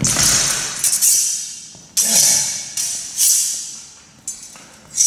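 Steel stage cutlasses clanging, about seven sharp metallic strikes, each ringing and fading away before the next.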